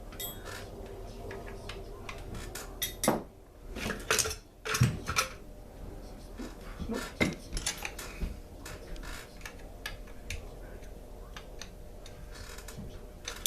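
Metal hand tools and small chainsaw parts clinking and clattering as they are handled and set down, with a cluster of louder clanks about three to five seconds in.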